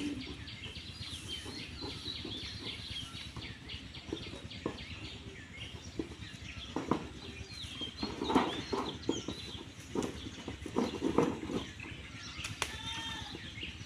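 Chickens clucking and small birds chirping, with a cluster of short, sharp sounds about halfway through.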